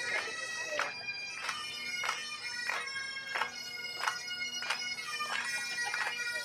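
A pipe band's Great Highland bagpipes playing a tune over their steady drones, with crisp accents on a regular beat about every two-thirds of a second.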